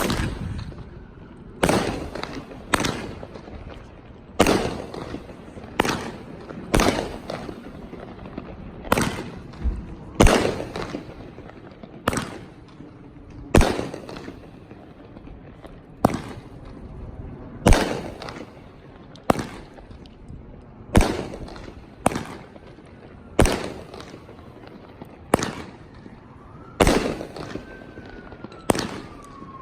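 Brothers High Output firework cake firing aerial shells, a sharp bang with a short echoing tail about once a second. A faint wavering tone comes in near the end.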